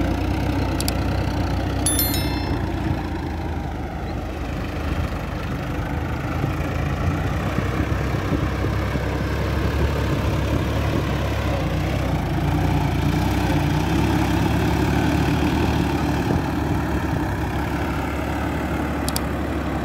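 Sonalika Tiger 55 4WD tractor's diesel engine running steadily under load while it pulls a rotary tiller through deep mud and water.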